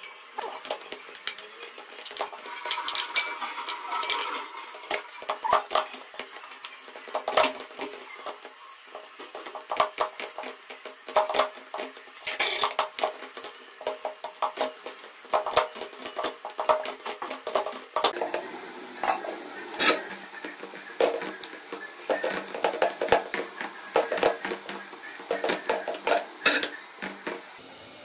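Hands kneading stiff flour dough in a stainless steel bowl, with irregular knocks, clinks and scrapes as the knuckles and dough press against the steel and the bowl shifts.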